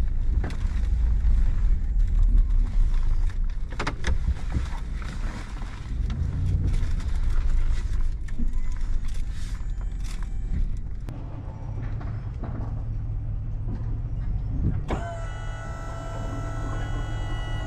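Tow truck running, its low engine and road rumble heard inside the cab, with scattered light knocks. About three-quarters of the way through the rumble gives way to a steady stack of held tones that starts suddenly.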